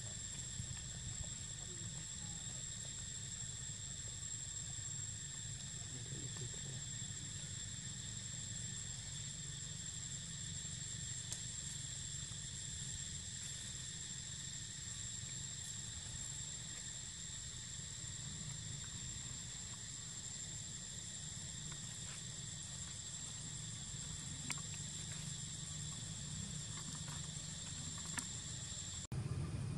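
A steady, high-pitched insect chorus keeps up an unbroken shrill drone over a low, steady rumble. It cuts off abruptly near the end.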